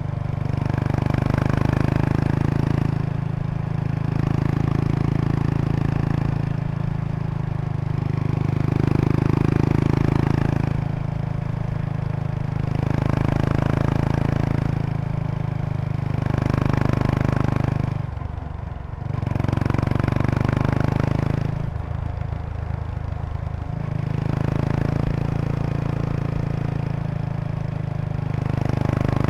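Kawasaki Estrella RS's air-cooled 250 cc single-cylinder engine through a Yamato aftermarket muffler, running at low revs while riding, the exhaust note swelling and easing every two to three seconds as the throttle opens and closes, with a short drop about two-thirds of the way through. A light buzzing rattle from the seat bag's stiffener board resonating with the engine vibration rides along with it.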